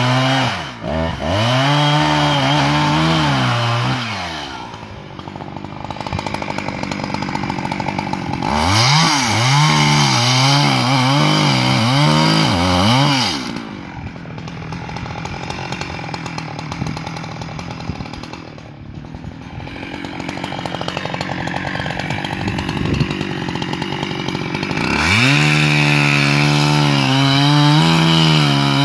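Husqvarna 365 two-stroke chainsaw cutting into a pine trunk at full throttle. About a second in it drops off, then is revved up and down repeatedly between quieter spells of idling. Near the end it goes back to a steady full-throttle cut.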